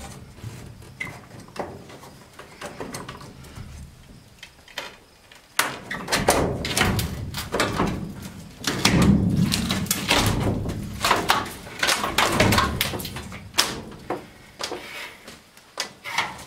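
Metal school-bus window frame being pried loose from the bus wall with a chisel or small crowbar: scattered metal knocks, clatter and scraping, sparse at first and busier and louder from about five seconds in.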